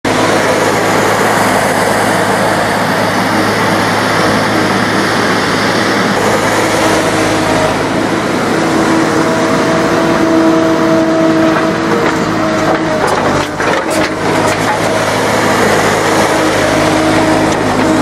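John Deere 260 skid steer's diesel engine running steadily as the machine drives and grades dirt, with a constant low drone and a higher whine that swells in the middle. A few sharp knocks come about two-thirds of the way through.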